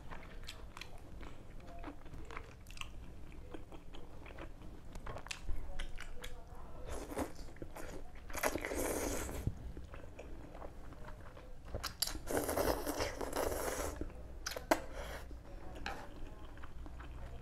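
Close-up eating of a bowl of noodle soup: wet chewing and mouth clicks, with two longer slurps of noodles about eight and twelve seconds in, the second lasting about two seconds. A sharp click follows shortly after it.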